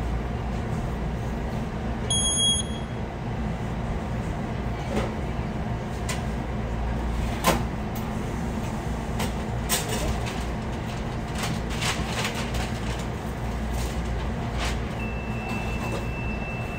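Fast-food kitchen ambience: a steady low hum of equipment with scattered clicks and knocks. A short electronic beep sounds about two seconds in, and a steady high electronic tone starts near the end.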